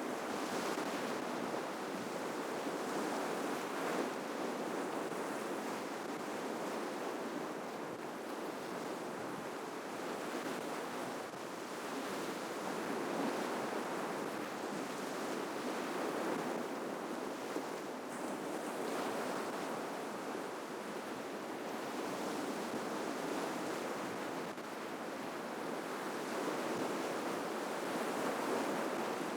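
Ocean surf breaking and washing on the shore: a continuous rushing that swells and eases every few seconds.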